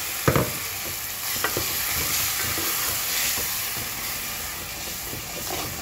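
Puréed tomato sizzling in a hot metal pot on the tempering of spices and curry leaves, with a wooden spoon stirring it and knocking against the pot a few times, the loudest knock near the start.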